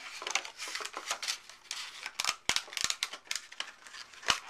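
Clear plastic clamshell packaging crackling and clicking as a hand squeezes and flexes it to pop an LED bulb out, with several sharp snaps.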